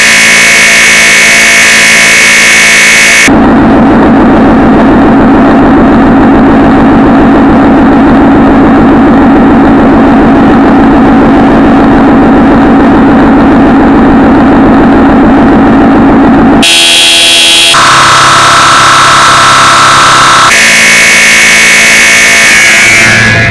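Extremely loud, distorted, blaring jumpscare sound effect: harsh horn-like tones buried in noise, switching abruptly between different sections several times.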